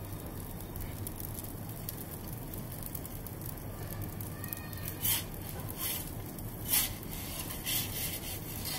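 Gas burner of an Ooni Koda 16 pizza oven running steadily on a high flame. From about five seconds in come a few short scrapes, about a second apart, as a slotted metal pizza peel slides over the baking stone under the pizza.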